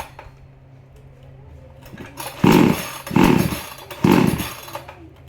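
Chainsaw being pull-started: three quick pulls of the starter cord about two and a half seconds in, each a short loud burst as the engine turns over without catching. The saw is hard to start.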